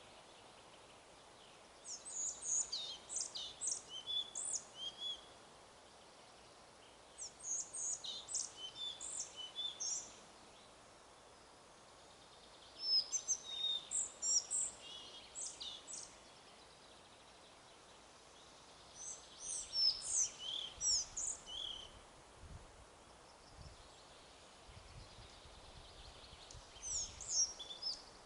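A songbird singing short, chirpy song phrases about every five to six seconds, five phrases in all, over a steady background rush of wind in the forest.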